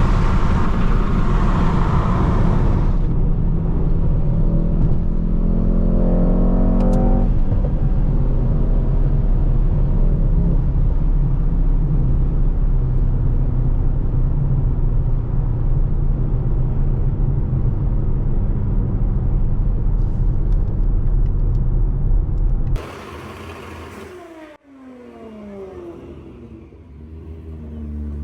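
Mercedes-AMG GT63 S twin-turbo V8 driving, with its engine note rising under acceleration a few seconds in over heavy road noise. About three-quarters of the way through, the sound cuts abruptly to a quieter scene where engines can be heard revving up.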